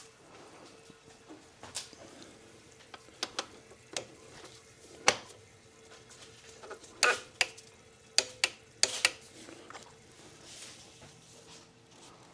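Scattered clicks and light metallic knocks of a torque wrench and socket being worked on an oil filter cap, with several quick clicks in a row near the middle. A faint steady hum lies underneath.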